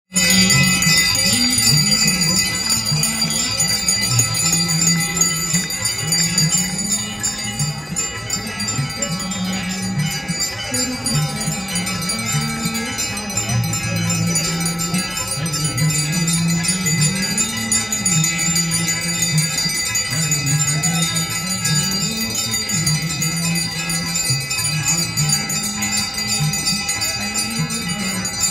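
Ganga aarti devotional music with a slow melody, heard over a continuous ringing of many bells.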